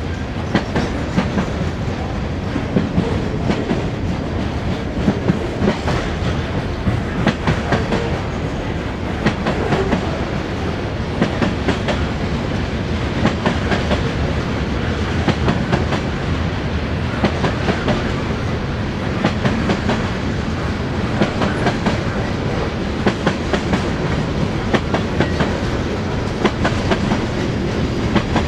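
Freight train's cars (covered hoppers and tank cars) rolling past steadily, wheels clacking over rail joints again and again over a continuous rumble.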